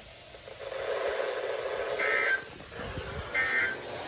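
NOAA Weather Radio SAME end-of-message data bursts: two short, identical buzzing two-tone digital chirps, about a second and a half apart, starting about two seconds in, with the third following just after. Before them there is only faint radio hiss after the end of a warning message.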